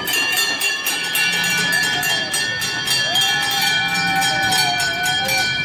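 Small bells on kiddie-ride cars ringing again and again over the clatter of the turning ride, with a drawn-out wavering higher sound in the background in the second half.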